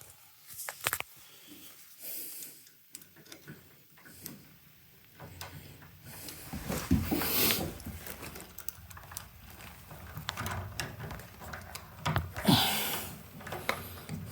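Screws being tightened into a door's latch keep, with scattered small clicks and knocks of the screwdriver and metal hardware being handled.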